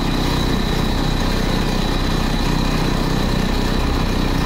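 CNC router's spindle driving a small carbide insert cutter through steel, a loud, steady, rough cutting noise with a steady high whine. The machine is vibrating hard: the deep slotting cut sets up oscillations.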